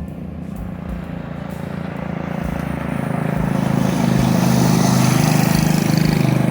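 Coleman CT100U mini bike's 212cc single-cylinder engine running, growing louder from about two seconds in and then holding steady. It runs smoothly on its freshly fitted billet connecting rod and flat-top piston, being ridden gently to break them in.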